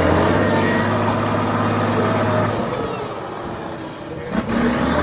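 Trial truck's engine running hard under load, with a high whine that rises and then slowly falls; the low engine note drops away about two and a half seconds in.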